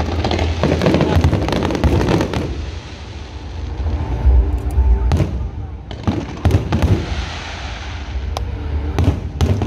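Aerial fireworks shells bursting in rapid clusters of bangs and crackles, easing off briefly about three seconds in before more bursts follow. Music plays in the background.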